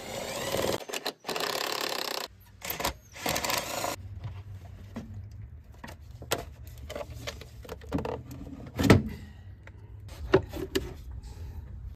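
An 8 mm socket on a 10-inch ratchet extension whirs in three short bursts as the air box cover bolts are run out. Then come scattered plastic clicks and knocks as the plastic air box lid is lifted off and the air filter is pulled out, with one sharp knock about nine seconds in.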